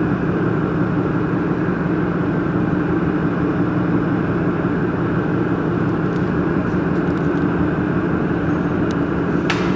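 Steady mechanical drone with a low hum, unchanging in level, and a faint click or two near the end.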